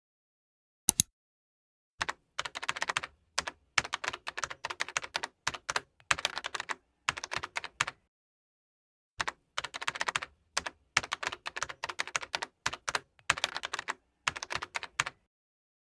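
Editing-app sound effect of rapid, irregular clicking in long bursts, like keys clattering, with a single sharp click about a second in, a short pause in the middle, and dead digital silence between the clicks.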